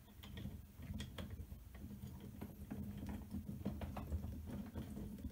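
Faint, irregular small metallic clicks and ticks of screws being turned by hand into a CNC router's aluminium extrusion frame, over a steady low hum.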